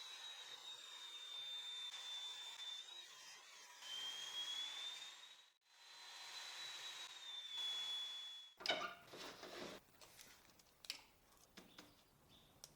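Table saw running and ripping pine board, a steady hiss with a wavering high whine, heard faintly. It stops about eight and a half seconds in, and scattered knocks and clicks of the wood being handled follow.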